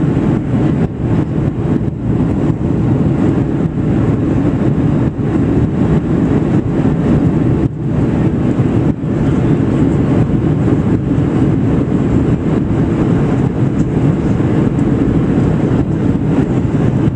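Steady, loud cabin noise inside a Boeing 737-700 airliner: a continuous, low-weighted rumble of the engines and the air rushing past the fuselage.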